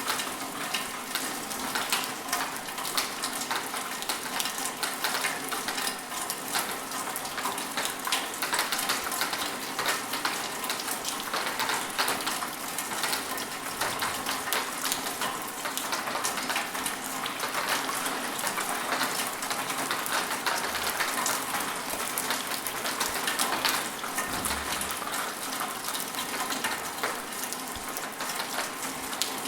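Steady rain: a dense patter of many small drops over an even hiss, with no let-up.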